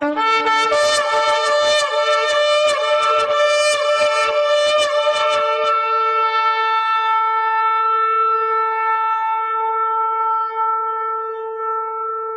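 A shofar sounding one long held blast that begins on a brief lower note and jumps up to the main note. Drum beats run under it for about the first six seconds. After the drums stop, the horn's note holds on alone and weakens near the end.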